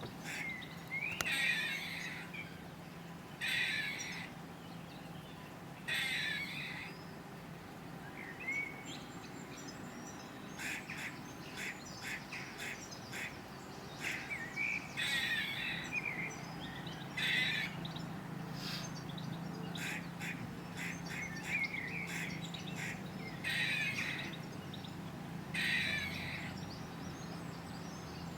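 Grey squirrel alarm call: throaty barks in bursts every couple of seconds, with a run of quicker, shorter barks partway through.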